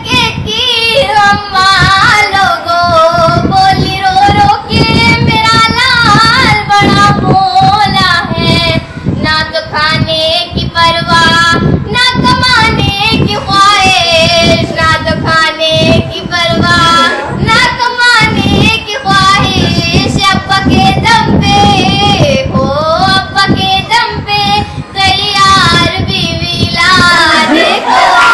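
A young woman singing solo, her voice gliding and wavering through long held notes with short pauses for breath.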